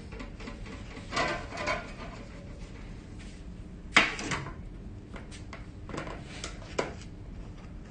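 Metal spoons scooping cookie dough out of mixing bowls and onto baking trays: scattered light clinks and scrapes, the sharpest clink about four seconds in.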